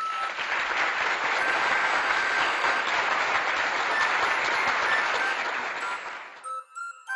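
Applause, a dense even clapping that sets in at once, holds steady and fades out about six and a half seconds in, over faint chiming music.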